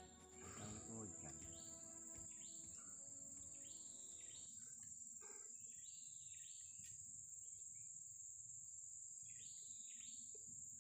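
Faint natural ambience: a steady high-pitched insect drone, with a bird repeatedly giving short, falling call notes.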